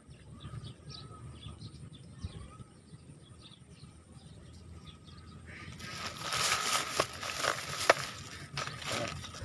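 Hands working a fishing rig close to the microphone, attaching a float and sinker to the line: rustling and sharp clicks starting about six seconds in. Before that, only faint bird chirps.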